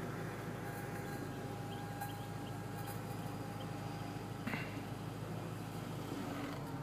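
2006 Ford Mustang convertible's power top folding down, its motor running with a steady hum and faint whine. A brief knock about four and a half seconds in.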